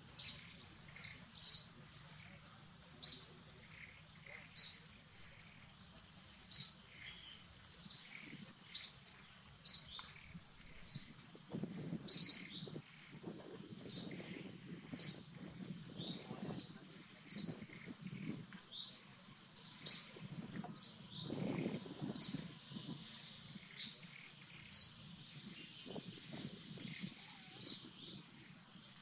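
A bird calling over and over, a short, sharp descending chirp roughly once a second, over a faint steady high hum.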